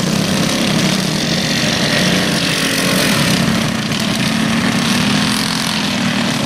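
Small go-kart engines running steadily as racing karts circle the dirt track.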